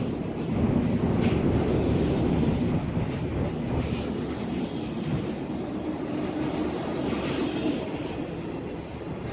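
Freight train rolling slowly past, a steady rumble of its wagons with a few faint clicks of wheels over the rail joints.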